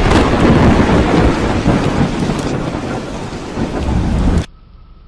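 Thunder rumbling over heavy rain after a nearby lightning strike, loud and rough, cutting off abruptly about four and a half seconds in.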